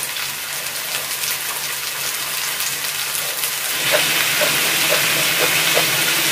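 Pork neck, mushrooms and vegetables sizzling on a hot grill pan: a steady frying hiss with small crackling pops. About four seconds in, the sizzle gets louder and brighter once fresh raw slices of pork neck are on the pan.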